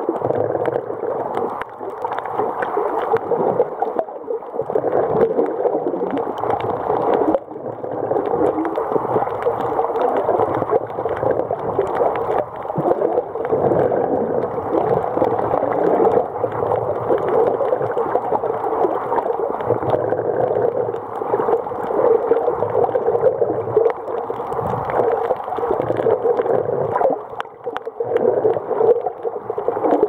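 Steady, muffled water noise picked up underwater by the camera's microphone: a continuous rushing hiss with no distinct events.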